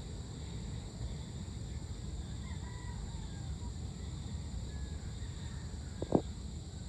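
Evening outdoor ambience: a steady low rumble with a few faint bird chirps, and one short, sharp call about six seconds in that stands out as the loudest sound.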